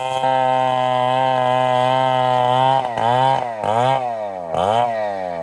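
STIHL chainsaw running steadily under load as it rips a mahogany plank. About three seconds in, its revs drop and climb again several times, then sink gradually near the end.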